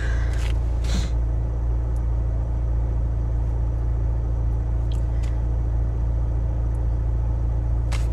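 A steady low rumble, like a vehicle or machine running in the background. There is a short breathy noise about a second in, and a few faint clicks near the middle and near the end.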